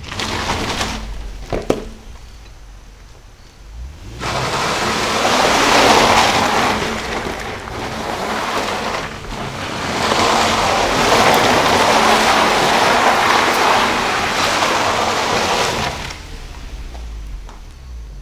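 A car spinning its tyres on loose wet dirt and leaves as it swings through a donut, with dirt spraying as a loud, rough hiss. The hiss starts about four seconds in, eases briefly near the middle, and fades a couple of seconds before the end.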